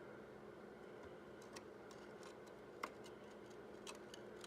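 Faint, scattered metallic ticks and clicks over a low steady hum, with one sharper click about three seconds in: a spanner wrench turning the preload collar on a quad's rear shock.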